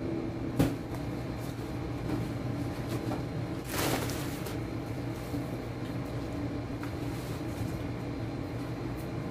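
A cardboard shipping box and the plastic-wrapped parcels inside it being handled: a sharp knock about half a second in and a burst of plastic rustling around four seconds, with a few lighter clicks, over a steady background hum.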